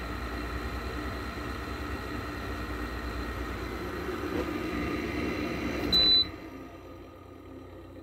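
4000 BTU window air conditioner running with a steady hum and fan noise. About six seconds in, its control panel gives one short, high beep, and the running sound then drops to a much quieter level.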